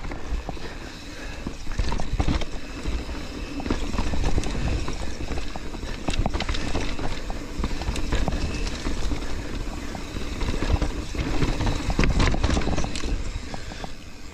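Mountain bike, the rider's YT Capra full-suspension bike, descending a rocky, rooty trail: the frame, chain and tyres clatter and knock continuously over the rocks, under a steady rumble of rolling noise.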